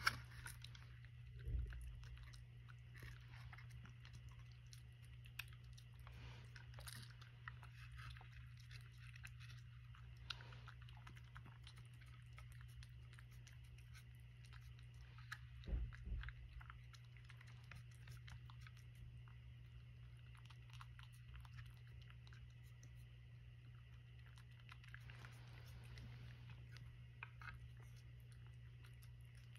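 A cat eating from a dish: faint chewing with small crunching clicks, over a steady low hum. Two low thumps, one about a second and a half in and one around the middle.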